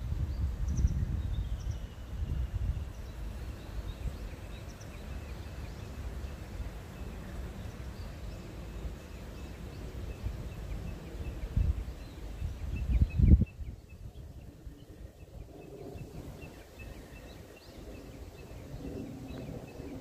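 Outdoor ambience: wind buffeting the microphone as an uneven low rumble, with faint high chirping in the background. A single sharp thump about 13 seconds in is the loudest sound.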